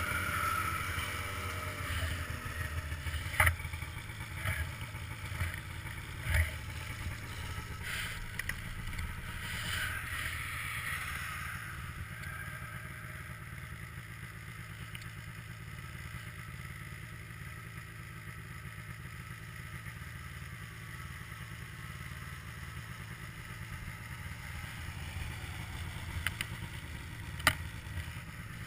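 Snowmobile engine running at low speed with a steady low rumble, easing off to a quieter idle about eleven seconds in as the sled slows for a stop; a few sharp clacks come through, one near the end.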